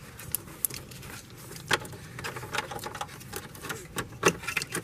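Irregular light clicks and taps of a plastic electrical connector and its wiring being handled and fitted by gloved hands in an engine bay. The sharpest click comes nearly two seconds in, and another near the end.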